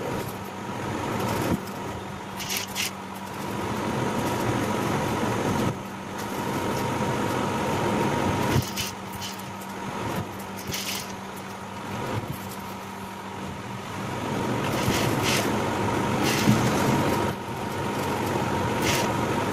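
Juki industrial sewing machine stitching piping onto a curved blouse neck piece in stop-start runs, louder while it sews, with the motor humming steadily in between. Several short sharp clicks come through.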